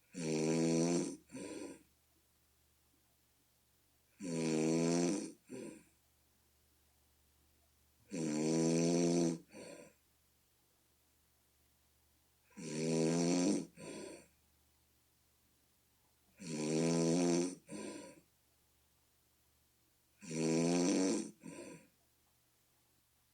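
A person snoring, with six snores at a steady rhythm about four seconds apart, each a long, deep, buzzing snore followed by a short second one. The snoring is bullfrog-like.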